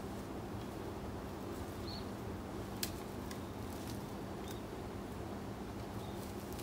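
A steady low hum with an even background hiss, broken by a few faint sharp clicks, the clearest about three seconds in, and two brief faint high chirps.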